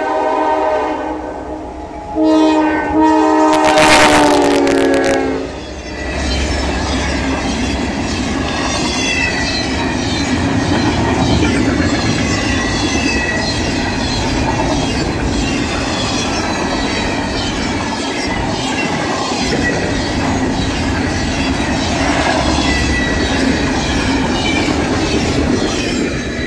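Freight train locomotive horn sounding a chord, one blast ending about a second in and a second blast from about two seconds to five and a half, with a brief loud rush around four seconds. Then a double-stack container train rolls past close by with steady wheel rumble and rhythmic clickety-clack over the rail joints.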